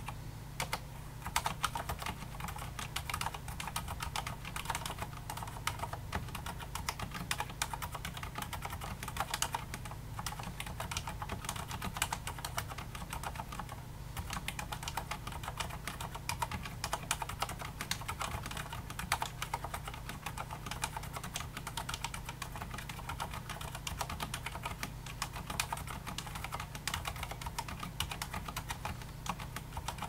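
Fast, continuous touch typing on a Filco Majestouch 2 mechanical keyboard with Cherry MX Silent Red switches, a dense, irregular patter of dampened keystrokes at about 70 words per minute.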